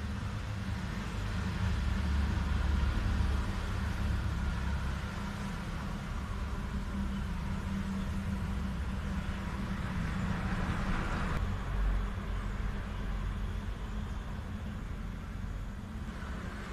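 Steady low background rumble, with a swell about ten seconds in that cuts off suddenly.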